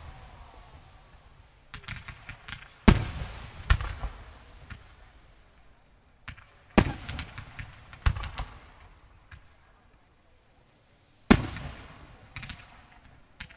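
Aerial firework shells bursting: about five loud, sharp bangs, each trailing off in echo, with smaller pops and crackling between them.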